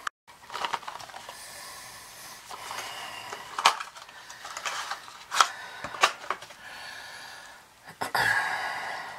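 Gloved hands handling small metal parts at an oil burner's fuel pump while its strainer is changed: a few sharp clicks and light knocks, then a longer rustling scrape near the end.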